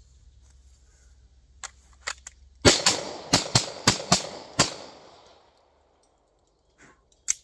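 Sig Sauer P365-series pistol fired in a quick string of about seven shots over about two seconds, the report echoing off after the last. A few light clicks come before the shots and two more near the end.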